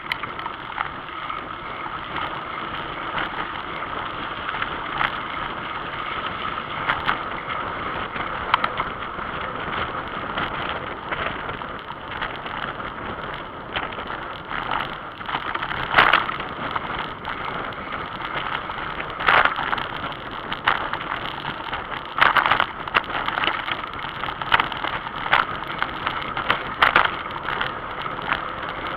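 Bicycle riding fast along a dirt forest trail: a steady rush of wind and tyre noise, with many sharp rattles and knocks as the bike jolts over bumps, more and louder in the second half.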